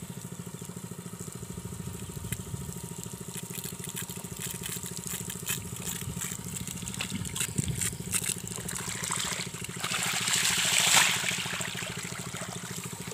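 Honda WB30XN water pump's small four-stroke engine running steadily while it pumps, with water spattering and crackling. About ten seconds in, a louder hissing rush swells and fades.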